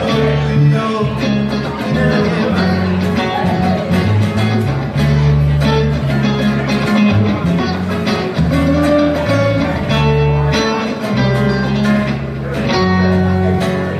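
Band music led by guitar, with low notes changing every second or so beneath the strumming.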